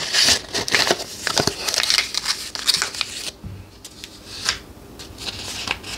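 Paper rustling and scraping as a stack of cardstock game cards is handled and slid into a paper envelope, then another envelope is picked up off the table. The rustles come in irregular bursts, busiest in the first three seconds.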